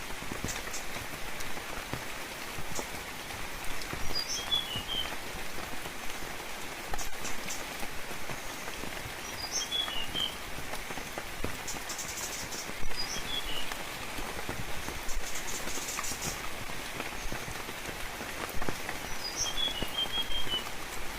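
Steady gentle rain falling, with scattered drip clicks. Four times, a songbird gives a short phrase of quick high chirps.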